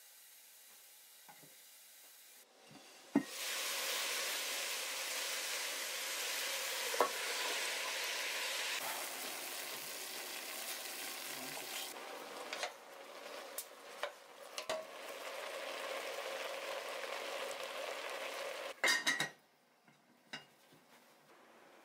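Cauliflower sizzling in an uncovered aluminium saucepan, with a few light clinks of a utensil stirring. The sizzle starts with a click about three seconds in as the lid comes off. Near the end the lid clanks back on and the sizzle cuts off.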